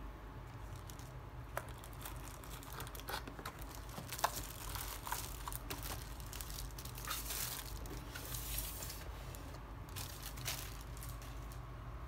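A thin plastic sleeve crinkling and rustling as the mechanical keyboard wrapped in it is handled and pulled out of its cardboard box, with scattered small clicks and taps.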